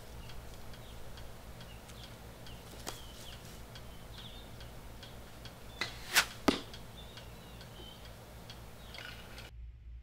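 A 548-grain arrow with a fixed-blade broadhead, shot from 60 yards, flying past: about six seconds in, a faint snap, then two sharp sounds about a third of a second apart.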